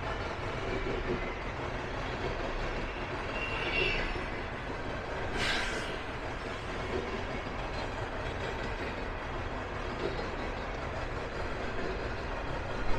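A train rolling past with a steady rumble of wheels on rail. There is a brief high squeal about four seconds in and a short sharp hiss a second and a half later.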